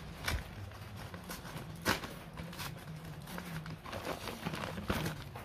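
Brown paper bag rustling and crinkling as a hand rummages inside it: a run of short, irregular crackles, the sharpest about two seconds in.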